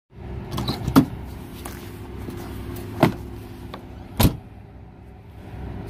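Pickup truck door being opened and shut: a sharp latch click about a second in, a knock near three seconds, and the loudest thud a little after four seconds as the door closes, over a steady low hum.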